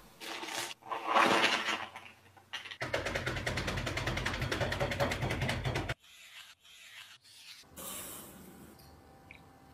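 Oreo cookies crunching and crackling as they are crushed by hand inside a plastic bag, loud and dense for about three seconds before it stops abruptly. Near the end comes a soft hiss of granulated sugar poured into a glass bowl.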